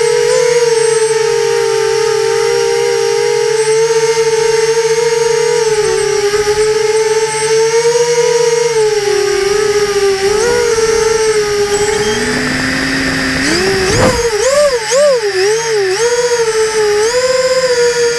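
Small quadcopter's electric motors and propellers whining at a steady pitch. About two-thirds of the way in, the pitch sweeps up and then wavers up and down several times before settling again.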